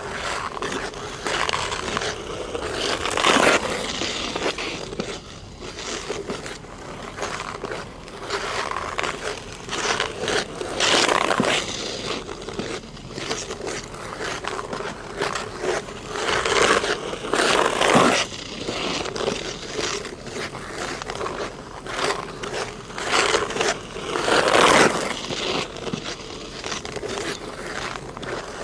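Ice skate blades scraping and gliding over hard natural black ice, in repeated crisp strokes with a few louder, harsher scrapes.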